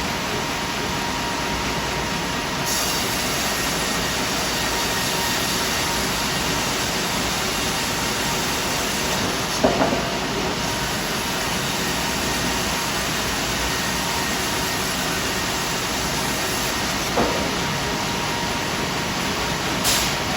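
Double-cut band sawmill running with a steady mechanical noise, broken by sharp clunks about halfway through, again a few seconds later, and once more near the end.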